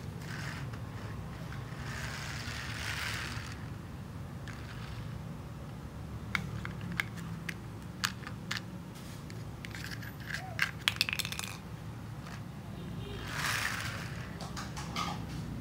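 Toy skip-loader garbage truck worked by hand on a concrete floor: a run of sharp plastic clicks and clacks, with a small stone knocking onto the concrete. Short scraping rushes come near the start and again near the end.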